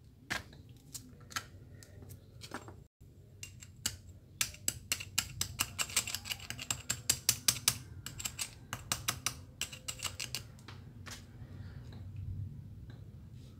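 Small metal parts of a pressure-washer piston pump clicking and clinking as they are handled and fitted by hand, with a fast run of light clicks, several a second, through the middle.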